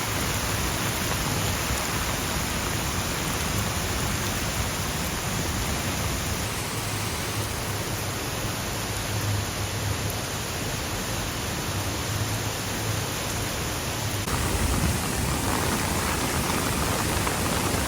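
Steady rushing of a flash-flood torrent pouring down a normally dry mountain riverbed, mixed with heavy rain, during a sudden downpour.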